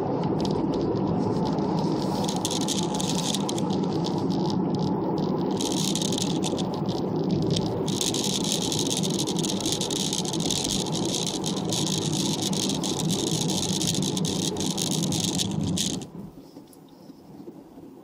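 Road and engine noise heard inside a moving vehicle, with a dense, continuous rattle over it. About two seconds before the end the noise drops away sharply as the vehicle slows for a roundabout.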